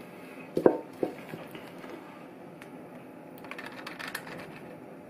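Spoon and saucepan knocking and scraping as sticky honeycomb toffee is scooped into a paper-lined metal tray: a sharp knock under a second in, a softer one just after, and light clicks toward the end.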